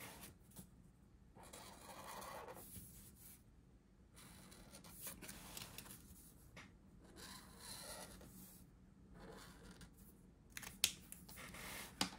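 Felt brush tip of a Tombow Dual Brush Pen dragged across planner paper in a series of soft scratchy strokes, each a second or two long, drawing highlight bars. A couple of sharper clicks come near the end.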